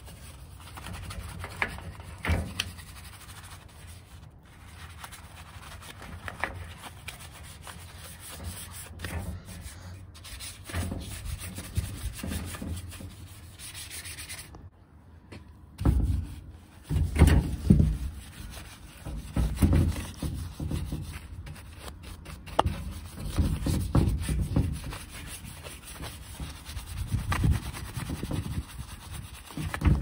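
Bristle brush scrubbing a foam-covered plastic air-conditioner grille in quick, irregular strokes. There is a short break about halfway, and the strokes are heavier and louder after it, with some dull knocks.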